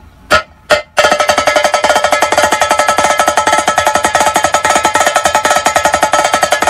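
A car sound system's tweeters playing music on their own for a treble test, with the bass and mids cut. After a couple of short stabs, a loud, fast plucked-string line comes in about a second in, with nothing below the upper midrange.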